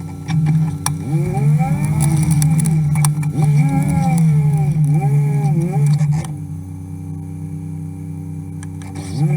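John Deere Gator utility vehicle's engine running under changing throttle, its pitch rising and falling several times as it is driven, with a few sharp knocks and rattles. Past the middle it settles to a steady, lower speed for a few seconds, then picks up again at the end.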